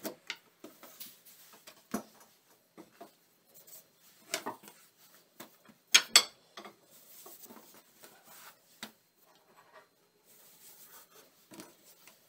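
Long thin wooden rolling pin rolling and knocking on a floured wooden table as thin dough sheets are rolled out: irregular light knocks and rubbing, with two sharper knocks about six seconds in.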